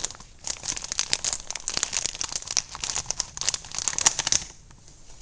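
Paper rustling and crinkling in a dense run of crackles that dies down about four and a half seconds in.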